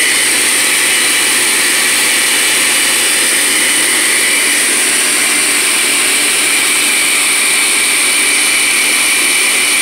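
Loud, steady running of an Oster Duralast Classic countertop blender, puréeing cucumber, pineapple and aloe vera drink into a smooth, frothy juice.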